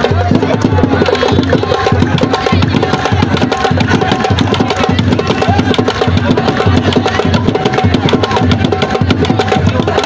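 Ensemble of traditional Serer drums playing a fast, dense, unbroken rhythm for ngel dancing.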